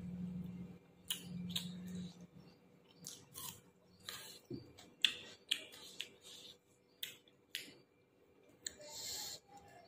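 Close-up eating sounds: chewing with irregular wet mouth clicks and lip smacks, about one or two a second. A low hum during the first two seconds.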